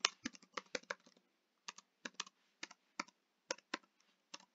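Typing on a computer keyboard: a fast run of keystrokes in the first second, then slower single key presses about two a second.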